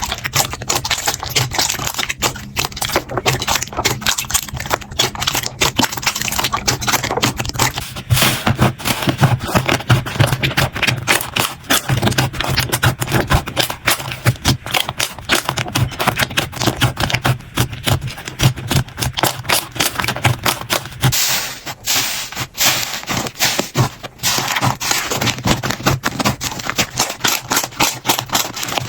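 Slime being squeezed and poked by hand, giving a dense, continuous run of rapid crackling and clicking pops.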